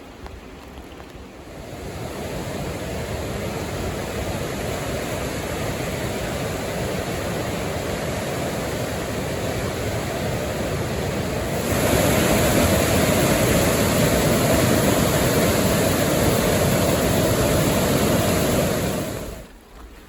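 Middle Fork Snoqualmie River rushing in high flow, a steady noise of fast water. It grows louder about two seconds in, jumps louder again around twelve seconds, and drops away abruptly near the end.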